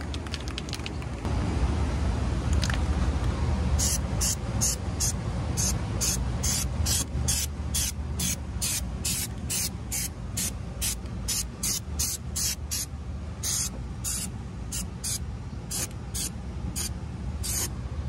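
Aerosol can of Nu-Calgon Pan-Spray sealant hissing in short, rapid bursts, about two a second, starting about four seconds in, as the coating is sprayed onto a corroded HVAC condensate drain pan. A steady low rumble runs underneath.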